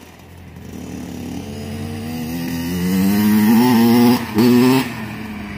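Small two-stroke dirt bike engine revving, climbing in pitch and getting louder as the bike nears. The engine note breaks off briefly about four seconds in, comes back for one more short rev, and then fades as the bike moves away.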